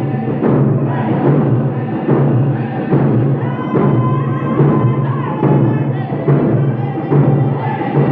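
Round dance song: hand drums struck together in a steady beat, with singers' voices holding high notes over it.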